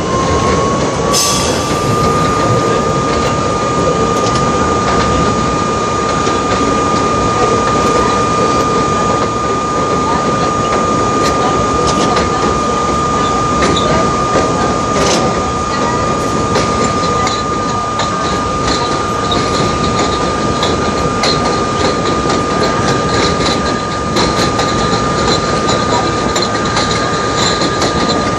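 R32 subway car running along open track. Its motor whine rises in pitch for about the first two seconds as the train picks up speed, then holds one steady pitch over the rumble of the wheels. Scattered clicks come from the wheels passing over rail joints.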